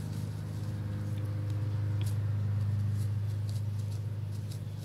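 A steady low hum, with a few faint clicks as small RC differential parts are handled.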